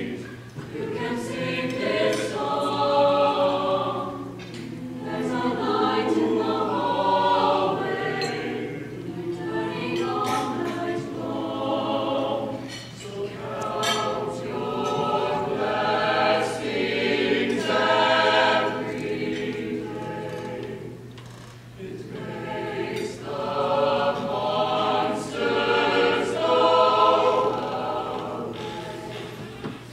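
Mixed choir singing in harmony, phrases swelling and easing with short breaks between them. A steady low hum runs underneath.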